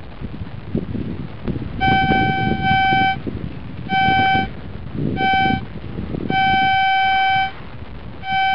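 Metal detector's audio tone sounding about six times at one steady pitch, some beeps short and one held about a second, as the coil is swept over a buried metal target that the detectorist thinks may be another coin.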